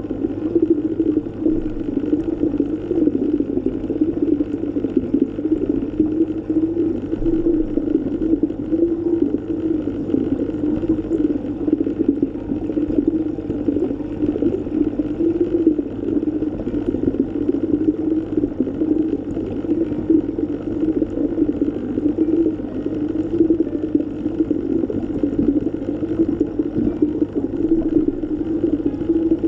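Underwater ambience: a steady, muffled rush of water noise, strongest in a low-middle band, with constant small surges in loudness.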